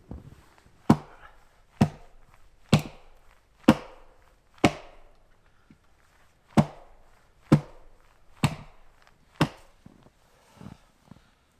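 Wood being chopped with steady, even blows about once a second. The rhythm skips one beat midway, and the last two blows are lighter.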